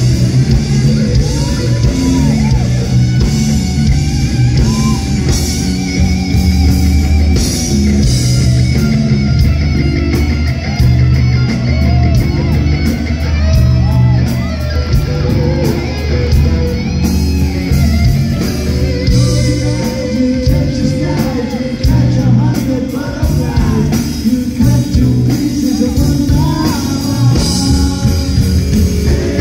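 Live rock band playing: electric guitar, bass guitar and drum kit, with singing.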